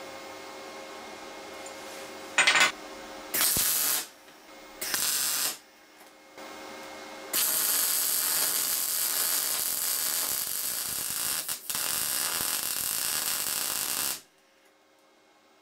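Electric welding arc from a VEVOR MIG-200D3 multi-process welder on 6 mm steel plate: a steady hum with a few fixed tones, three short arc bursts about two, three and a half and five seconds in, then the arc running continuously for about seven seconds before it cuts off suddenly near the end.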